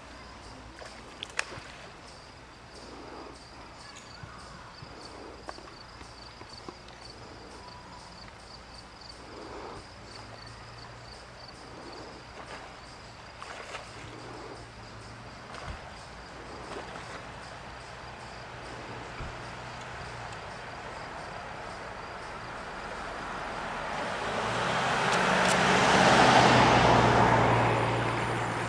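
Quiet outdoor background with a few faint clicks and a faint, even ticking, then a car passes on the road near the end, swelling to a peak and fading away.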